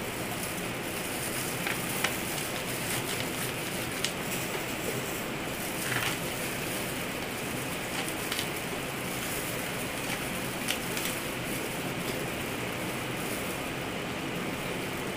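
Steady hiss of rain, with a few light ticks and rustles from gloved hands pressing potting soil into a pot.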